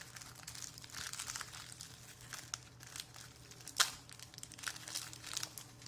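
Crinkling and rustling of trading-card pack wrappers and packaging being handled, with scattered sharp little clicks and one louder snap about two-thirds of the way through.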